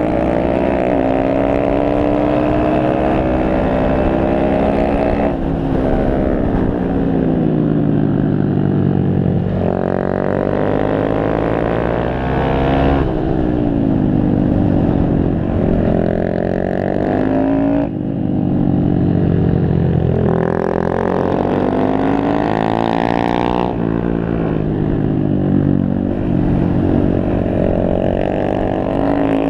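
Honda Grom's 125 cc single-cylinder engine heard onboard while riding hard on a track. It revs up and eases off through the corners, and several times the pitch climbs and then breaks off abruptly at a gear change.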